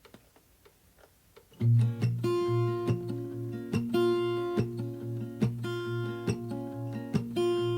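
Background music: an acoustic guitar strumming chords in a steady rhythm, as the instrumental intro to a song. It starts about a second and a half in, after a few faint ticks.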